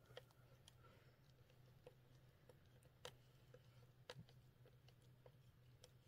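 Near silence: a few faint clicks from hands handling the battery leads on a dirt bike, the two clearest about three and four seconds in, over a faint low steady hum.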